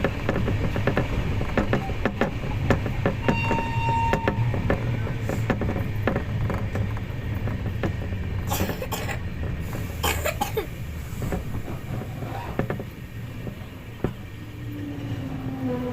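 Train running on the rails, with a low rumble and a dense patter of wheel clicks and carriage rattles. A short high tone sounds about three seconds in, and a steady pitched tone, like a horn, starts near the end.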